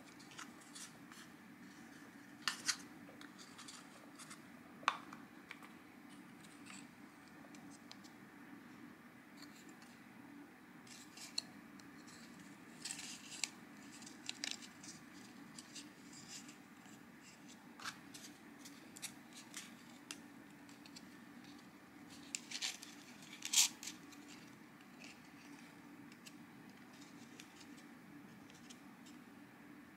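Stiff white cardstock parts handled and fitted together, a square card shaft pushed through a hole in a card plate: light scrapes and scattered clicks of card on card, the sharpest about three quarters of the way through, over a faint steady hum.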